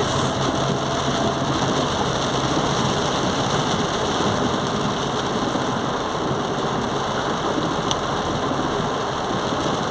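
Heavy rain drumming steadily on a car's roof and windshield, heard from inside the moving car.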